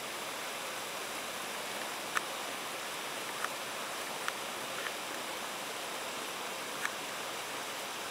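Steady rush of falling water from a waterfall, with a few faint, brief ticks scattered through it.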